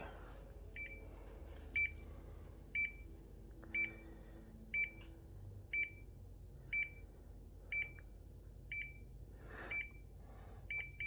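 Samsung side-by-side refrigerator's control panel beeping, a short high beep about once a second, repeated about eleven times, while the fridge sits in service mode set to refrigerator defrost.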